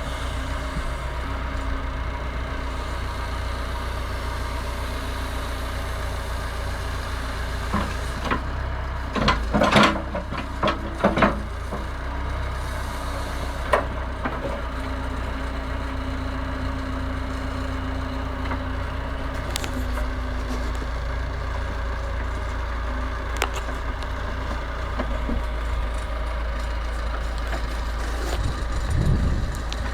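Massey Ferguson 50HX backhoe's diesel engine running steadily, with a cluster of loud knocks about ten seconds in and a few single sharp knocks later.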